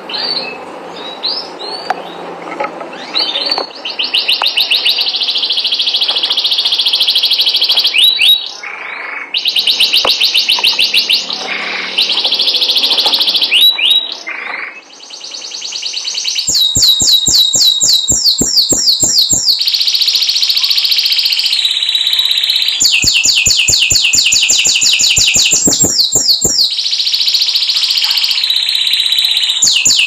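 Domestic canary singing: long runs of fast trills and rolling notes broken by short chirps. About halfway through, a louder, faster, rattling trill takes over and repeats in long phrases.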